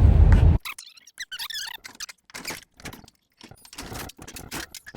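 Vehicle road noise cuts off suddenly within the first second. Then come a string of light clicks, rattles and wavering squeaks from a vending machine being shifted about on its screw-in caster wheels.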